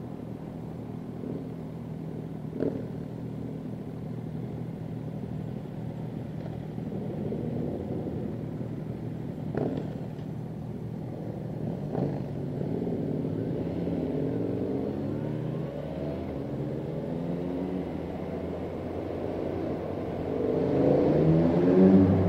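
Motorcycle engines running at low speed in a group, the engine note rising and falling as the bikes pull away, with a few short knocks. Near the end the engines grow louder as the bikes ride into a road tunnel.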